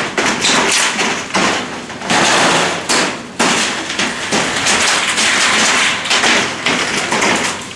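Corrugated zinc roofing sheets clattering and banging as they are pulled off and handled: a loud, continuous run of knocks and rattling.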